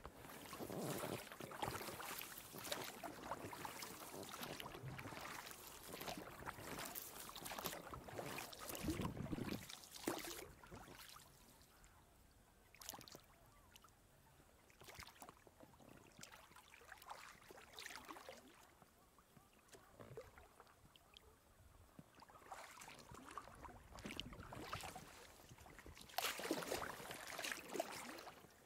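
Oars of an inflatable boat dipping and pulling through still lake water, rowing strokes with splashes and drips. The strokes come thick for the first ten seconds, thin out to a few quieter ones through the middle, and pick up again near the end.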